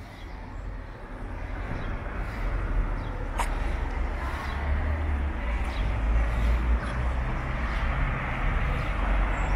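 Outdoor background noise: a steady rumbling hiss with a heavy low rumble, growing louder over the first couple of seconds and then holding.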